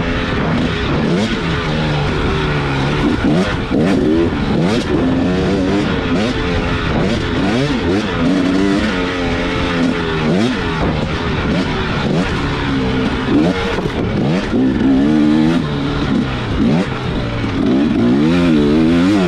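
Dirt bike engine racing off-road, its pitch rising and falling every second or so as the throttle opens and closes through the turns, with short knocks scattered throughout.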